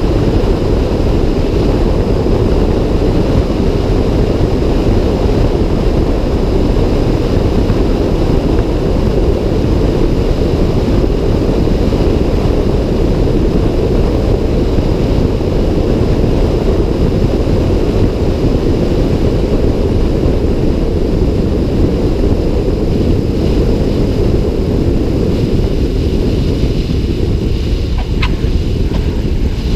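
Wind rushing over an outside-mounted camera with the Cessna Cardinal's engine and propeller droning steadily underneath on a landing approach. Near the end there is a short squeak as the tyres touch the runway.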